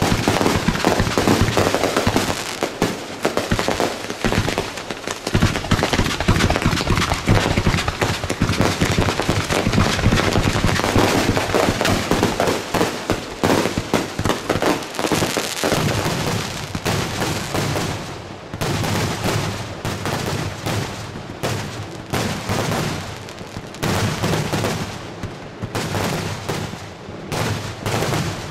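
Weco 500g consumer firework cake firing a rapid barrage: a dense stream of launch thumps and bursting, crackling stars. About two-thirds of the way through, the barrage thins into separate quick volleys with brief gaps between them.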